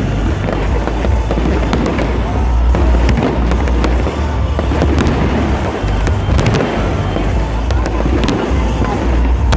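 Fireworks going off: a dense, continuous run of sharp cracks and bangs over a steady low rumble.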